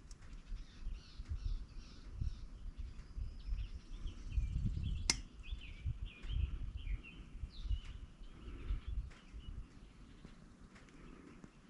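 Small birds chirping repeatedly in the background, over low knocks and handling noises, with one sharp click about five seconds in.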